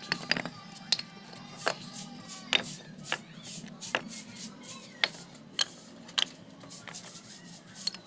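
Loose bricks and stones being picked up and set down against a brick wall by hand: a string of sharp, irregular clinks and knocks, about one every half second to second, over a steady low hum.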